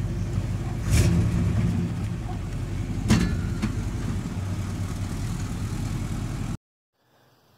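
Old pickup truck's engine running steadily, heard from inside the cab, with two short louder knocks about one and three seconds in. The sound cuts off abruptly near the end.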